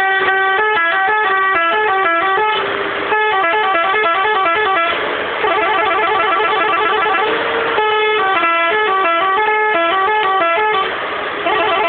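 Telolet multi-tone horn on a water tanker truck playing quick stepping melodies. The phrases are broken by short hissy pauses.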